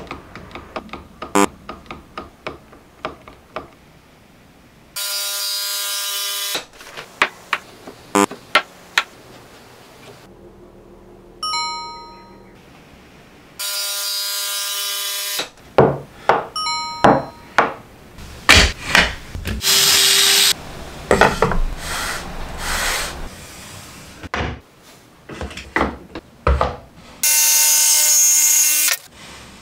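A jigsaw run in short bursts that start and stop suddenly, and cutting wood with rapid rough strokes, between clicks and knocks of handling. A short chime of falling tones comes several times.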